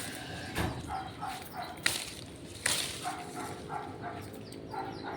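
A dog barking repeatedly at a distance, in short quick runs of barks, with three sharp clicks or snaps in the first three seconds.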